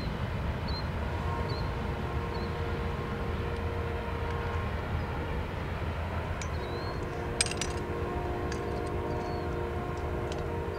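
Freight train locomotive horn sounding two long blasts, the first starting about a second in and the second about six and a half seconds in, over a steady low rumble.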